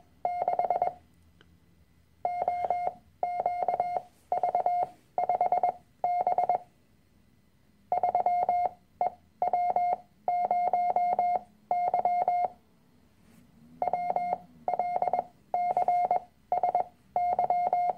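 Morse code practice tone near 700 Hz, keyed on and off in dots and dashes that spell out single letters, numbers and strokes one after another, with short pauses between characters.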